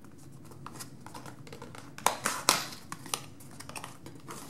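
Small paperboard box being opened by hand: a run of light clicks and taps from its flaps, with two louder snaps a little after two seconds in.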